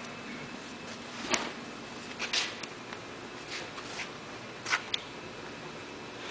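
Scattered, irregular light clicks and knocks from hands working the paper feeder of a Toko 4750 offset press, about six in all, over a faint steady hum.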